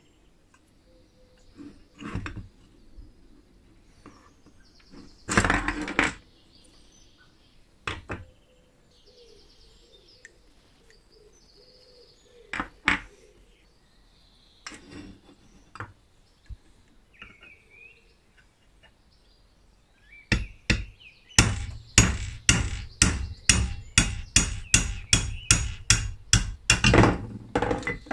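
Metal parts of an old compressor being handled and set down on a bench, with scattered knocks and clatters. From about three-quarters of the way through, a fast, even run of hammer blows on a pin punch, about three a second, driving a pin out of the compressor's pulley on an anvil.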